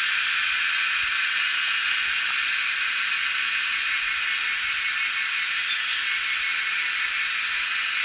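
A dense, steady, high-pitched insect chorus, with a few faint, short, high bird notes about two seconds in and again around five to six seconds.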